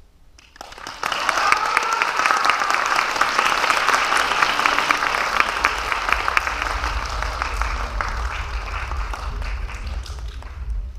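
An auditorium audience applauding at the end of a dance number. The clapping starts about half a second in, is fullest over the first few seconds and slowly thins toward the end.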